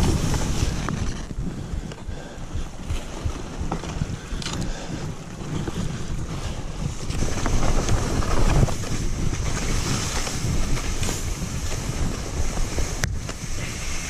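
Wind rushing over the microphone as ski-touring skis slide through deep powder snow, the rushing rising and falling with speed and turns; a single sharp click near the end.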